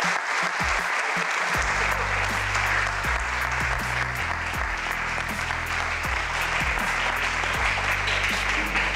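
Audience applauding, with background music whose bass line comes in about a second and a half in.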